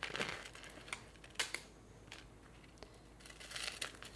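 Faint handling sounds of items being packed away and picked up: a few light clicks and a soft rustle of packaging near the end.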